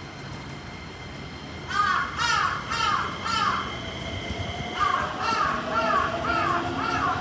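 A crow cawing in two quick runs, about four caws and then, after a short pause, about six more, roughly two a second. A faint, slowly rising whine runs underneath in the second half.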